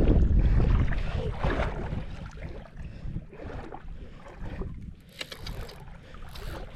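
Wind rumbling on the microphone, strong at first and easing off over the first couple of seconds, with a few faint ticks near the end.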